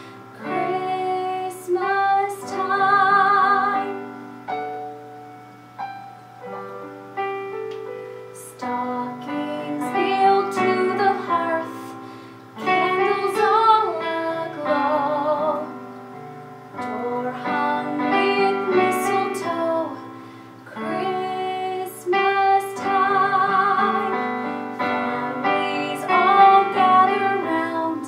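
A woman singing solo with vibrato on her held notes, accompanied by piano chords played on a Yamaha Motif keyboard. Her phrases come with short breaths between them.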